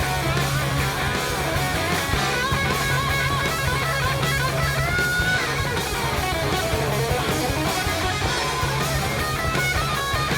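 Hard rock music, a live recording: an electric guitar lead with bent, sliding notes over a steady bass line, with no singing.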